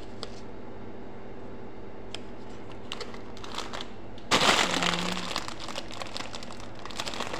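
Plastic candy bag crinkling loudly as a hand grips and handles it, starting about four seconds in; before that only faint room hum with a few light clicks.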